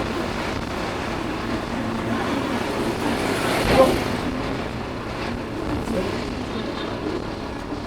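Steady motor-vehicle traffic noise, with one short louder sound just under four seconds in.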